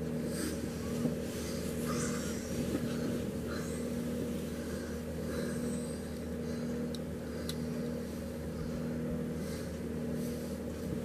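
Bedding rustling softly every second or two as a sleeping bag and comforter are pulled up and settled, over a steady low hum. Two faint clicks about seven seconds in.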